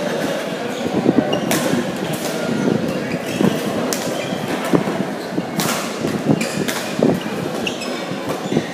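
Badminton rackets striking the shuttlecock in a rally: several sharp smacks a second or two apart. Between the hits come short squeaks of shoes on the court floor, over a murmur of voices in a large hall.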